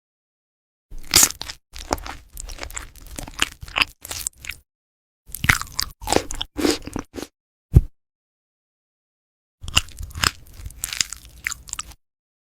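A cat chewing crunchy food close to the microphone: rapid sharp crunches in three bouts with silent pauses between them, and a single loud crack between the second and third bouts.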